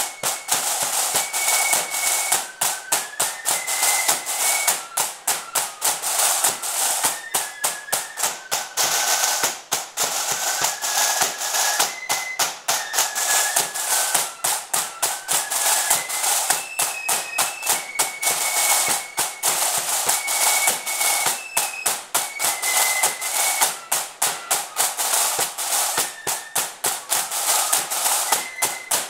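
Marching flute band playing a tune: flutes carry a high, stepping melody over rapid, continuous snare drumming.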